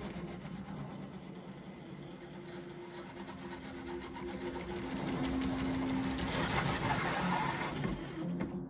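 Electric motor and gear drivetrain of a Traxxas TRX-4 Sport RC crawler whining as it drives on a wooden ramp, the pitch rising and falling with the throttle. It grows louder in the second half.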